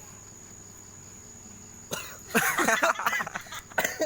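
A man coughing hard and repeatedly, in harsh voiced bursts that start about two seconds in, as he chokes on vape smoke.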